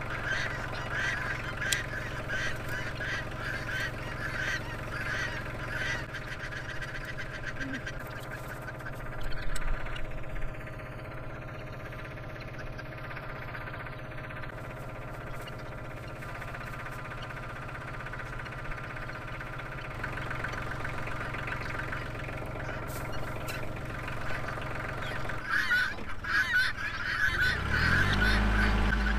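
A compact farm tractor runs steadily, then revs up near the end as its front loader lifts a round hay bale. Geese honk over it in bursts near the start and again near the end, and a short louder noise comes about a third of the way in.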